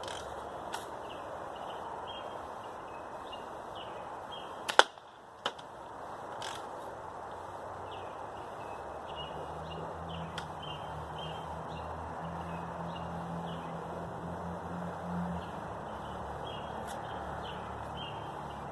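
A single sharp BB gun shot about five seconds in, followed half a second later by a fainter click. Steady outdoor background noise with birds chirping runs throughout, and a low hum comes in midway.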